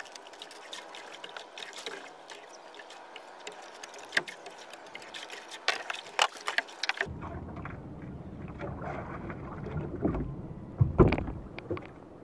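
Water noise around a small boat, with frequent sharp clicks and knocks from handling on board. About seven seconds in the hiss gives way to a low rumble, with a couple of heavy thumps near the end.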